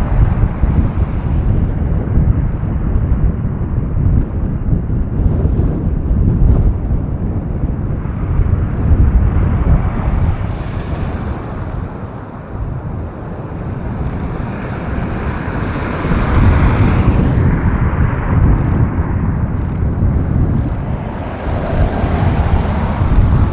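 Boeing B-52 Stratofortress's eight jet engines at takeoff power through the takeoff roll and lift-off: loud, continuous jet noise, heaviest in the low range, brightening in the middle with sharp crackles over a few seconds.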